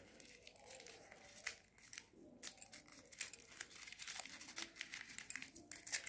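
A small piece of paper being crumpled by hand into a rough wad: faint, irregular crinkling with many small crackles.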